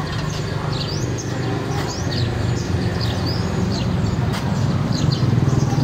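Small birds chirping in many quick, high, irregular notes, over a steady low rumble that grows a little louder near the end.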